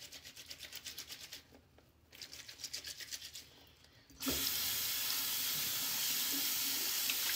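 A Norwex makeup removal cloth rubbed briskly against itself to work laundry detergent into stains, in quick rhythmic strokes with a short pause. About four seconds in a tap is turned on and water runs steadily into the sink.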